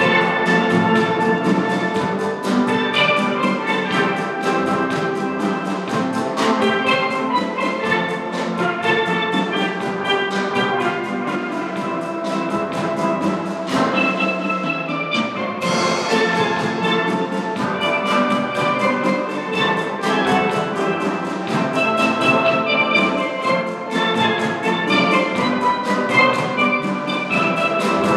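A high school steel drum band playing: many steel pans striking quick, ringing notes together in a steady rhythm. The high notes thin out briefly about halfway through, then the full band comes back in.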